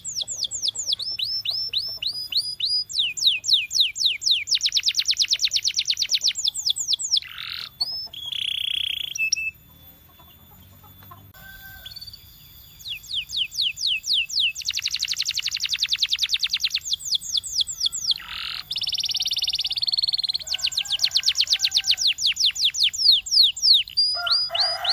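Domestic canary singing its song: rolls of quick repeated down-sweeping notes at changing speeds, broken by short buzzy flat tones. The song pauses briefly about ten seconds in, then carries on with more rolls.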